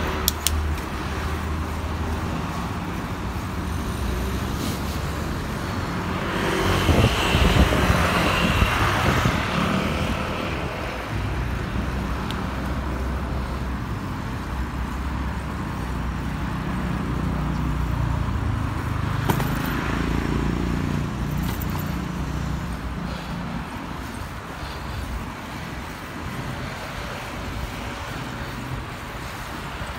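Road traffic noise: a steady low hum of car engines, with a vehicle passing louder about seven seconds in and a smaller swell around twenty seconds.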